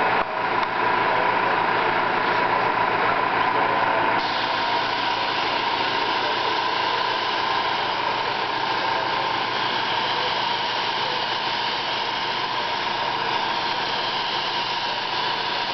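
Steady hiss of a gravity-feed paint spray gun spraying, over a steady mechanical hum. The high part of the hiss drops a little about four seconds in.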